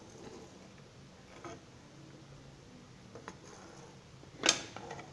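A steel spoon knocking and scraping against a nonstick pot while boiled chicken pieces are lifted out of the broth: a few faint knocks, then one sharp, louder knock near the end followed by small ticks.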